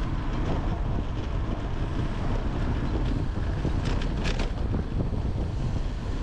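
Wind buffeting the microphone of a camera on a moving bicycle, a steady rushing noise, with a few brief faint ticks about four seconds in.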